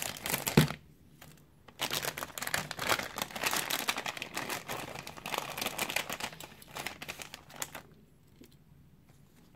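Scissors snipping across the top of a Hot Wheels Mystery Models blind-bag pouch, with a sharp snip under a second in, then several seconds of the pouch's plastic crinkling as it is torn open and the toy car and card pulled out, stopping near the end.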